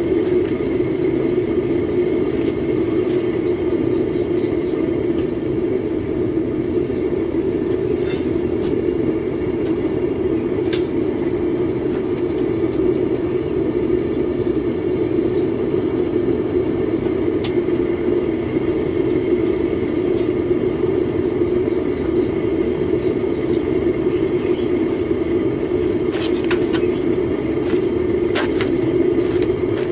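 Propane burner firing steadily into a homemade foundry furnace as aluminum melts, a constant roar. A few faint metallic taps come through it.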